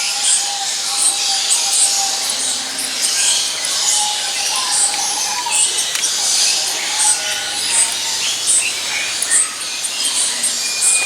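A flock of many birds chirping and calling at once: short, high chirps repeating over constant chatter.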